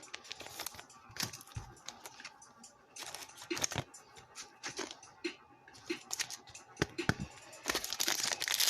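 Trading cards and a pack wrapper being handled: scattered clicks and crinkles, becoming a denser run of crinkling near the end.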